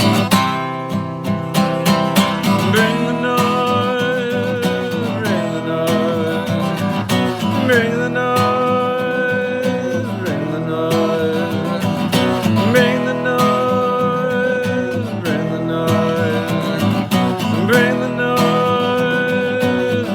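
Acoustic guitar strumming, with a wordless melody over it that slides into long held, wavering notes in short repeated phrases.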